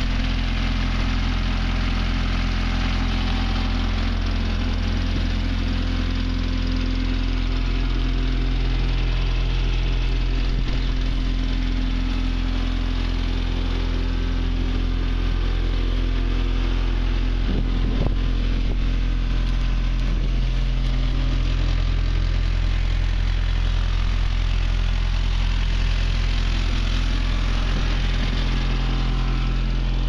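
Case SR130 skid steer's 49 hp diesel engine idling steadily.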